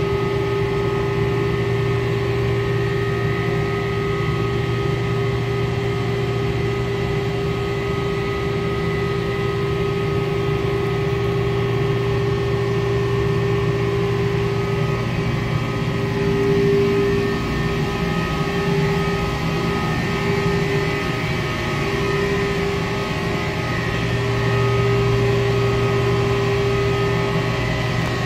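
Steady, loud drone of a cruise ship's running machinery, with several steady whining tones over a low rumble, swelling a little twice.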